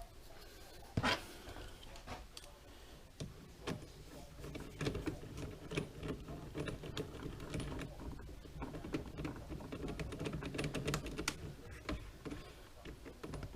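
Irregular light clicks and taps of a small tool and plastic wheel parts as a wheel is fitted and tightened onto a 1/14 scale RC trailer hub.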